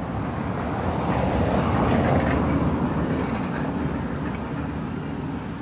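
A motor vehicle passing by. Its noise swells over the first two seconds, then fades away.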